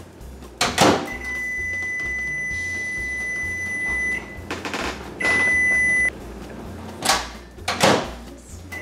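Over-the-range microwave oven in use: its door shuts with a clunk about a second in, then a steady high tone sounds for about three seconds, followed by a shorter, louder tone of about a second. Near the end the door clunks twice as it is opened.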